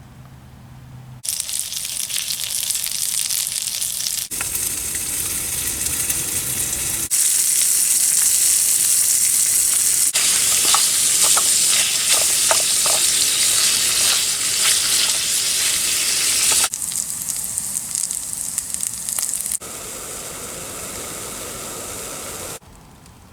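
Food sizzling and frying in a frying pan: a steady hiss that jumps in loudness at several abrupt cuts, loudest through the middle.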